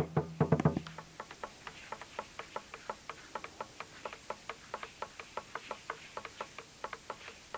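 Dancers' rattles clicking in a quick, fairly even rhythm, about six clicks a second.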